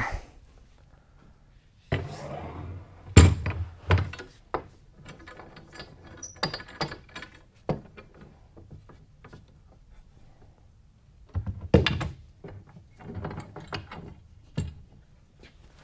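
Long metal bar clamps knocking and clattering against a wooden table top and each other as they are set across a slab glue-up and tightened. The knocks come irregularly, the loudest about three seconds in, with further clusters around twelve and fourteen seconds.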